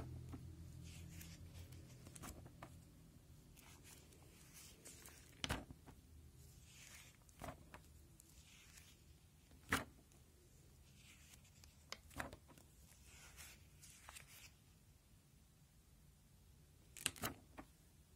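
Clear plastic sleeve pages of a binder being handled and turned: faint rustling with several short, sharp crinkles, two of them close together near the end.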